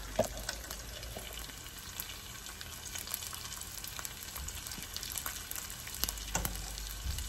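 Chicken pieces frying in hot sesame oil in a pan: a steady sizzle full of small crackling pops, with a few louder knocks about a second in and near the end.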